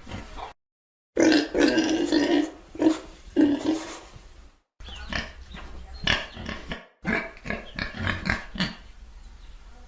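Pigs grunting and oinking in several short clips spliced together, with abrupt dead-silent gaps between them. The loudest stretch is a run of pitched oinks from about one to four and a half seconds in; the rest is quicker, rougher grunting.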